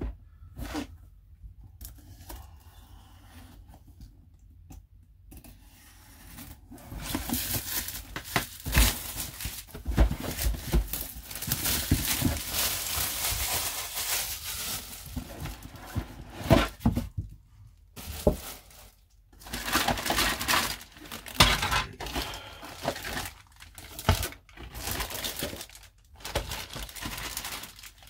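Clear plastic shrink wrap being torn off a plastic model kit box and crumpled, then plastic parts bags crinkling as they are handled. Only light handling clicks for the first several seconds; the loud crinkling comes in spells with short pauses.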